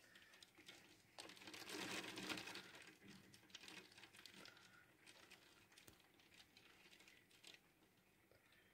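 Faint patter of hailstones ticking against a window pane: a dense spell of rapid little ticks about a second in, thinning to scattered ticks that die away.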